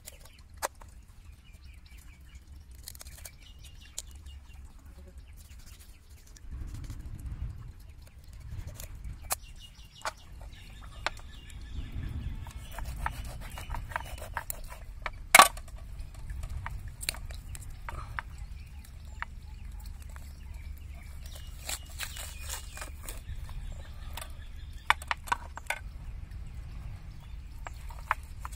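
Kitchen knife cutting up a whole raw chicken on a steel plate: scattered sharp clicks and taps of the blade against the metal plate, the loudest about halfway through, over a low rumble. Short bird calls in the background.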